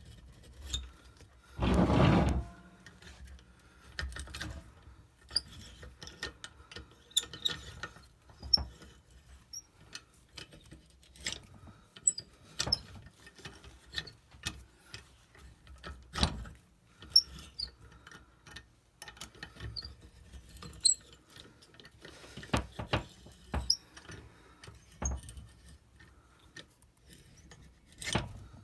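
Spark plug thread-repair reamer being turned by hand into the blown-out spark plug hole of a Ford 5.4L Triton's aluminum cylinder head, cutting away metal. It makes irregular clicks, scrapes and short high squeaks, with one louder scraping burst about two seconds in.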